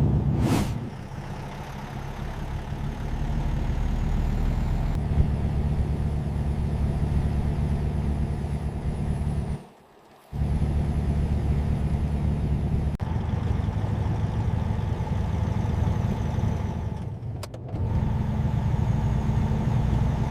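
A semi-truck's engine runs steadily with road noise, with a short burst of hiss at the very start. The sound cuts off abruptly for a moment about halfway through and again near the end, as if separate clips were joined.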